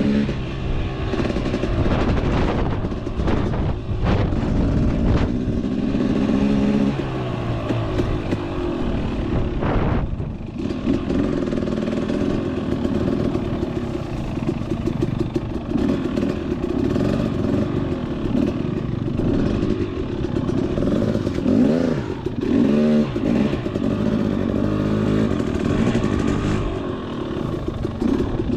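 KTM 250 XC-W two-stroke single-cylinder dirt bike engine running as the bike is ridden, the revs rising and falling repeatedly.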